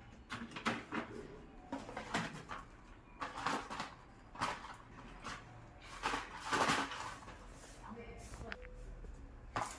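Cardboard firecracker boxes being handled and set down: irregular rustles and light knocks.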